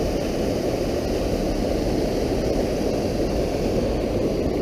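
Steady rush of creek water running over rocks.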